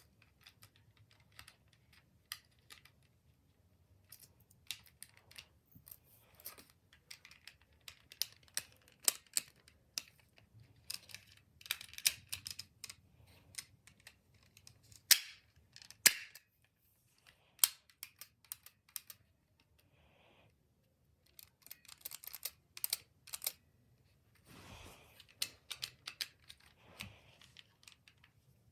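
Small plastic parts of a toy wing pack being handled and fitted together: irregular sharp clicks, taps and snaps, now scattered, now in quick clusters, the loudest snaps in the middle.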